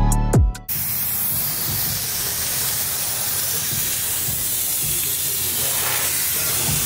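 Electronic music cuts off about half a second in, then a handheld steam cleaner's nozzle hisses steadily as it blows a continuous jet of steam.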